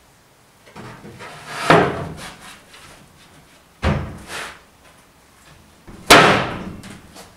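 Wooden base panel being forced into place in a workbench cabinet: wood rubbing on wood, then three heavy thumps about two seconds apart. The last and loudest comes as the panel is stamped down with a boot.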